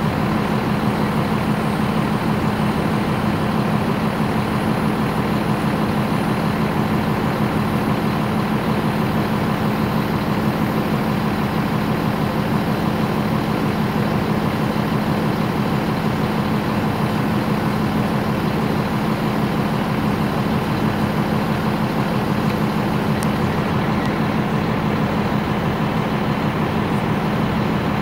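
Heavy diesel engines of mobile cranes running steadily during a tandem lift, a constant drone that does not change.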